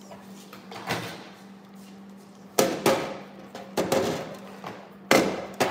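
Hard plastic toys and containers knocking and clattering against a plastic sensory bin and tabletop: a string of sharp knocks, the loudest about two and a half seconds in and again near the end.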